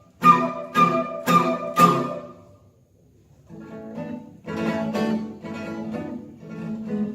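Instrumental duo music: four ringing plucked chords about half a second apart that fade out, a short near-silent pause, then a sustained melody with accompaniment resumes.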